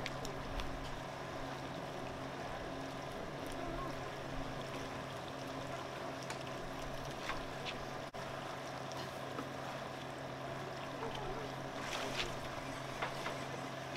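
Open-air ambience of wind and water noise with a constant low hum running under it, and a few faint clicks about seven and twelve seconds in.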